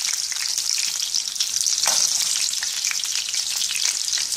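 Breaded pineapple pieces frying in hot oil in a steel pan: a steady crackling sizzle, with a few light clicks from a metal spoon turning them.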